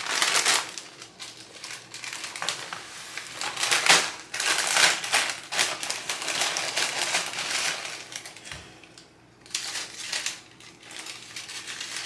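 A plastic tortilla chip bag crinkling and the chips inside rustling and crackling as they are handled and taken out by the handful, in irregular bursts of sharp crackles.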